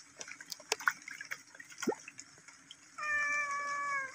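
Light splashing and drips as a hand pats the surface of pond water, then about three seconds in a single drawn-out animal cry like a cat's meow, lasting about a second and falling slightly in pitch. The cry is the loudest sound.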